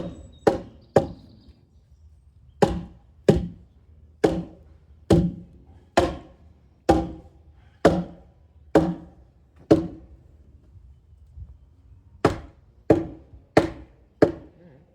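Wooden boards being struck hard with a large board: three quick blows, then a steady run of about ten knocks at roughly one a second, then four more near the end, each ringing briefly.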